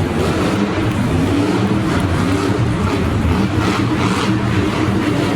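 Monster truck engine running loud and revving, its pitch wavering up and down over a noisy roar.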